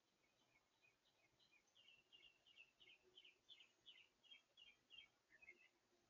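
A songbird singing faintly: a run of short, quick repeated notes, about three a second, building up and then tailing off near the end.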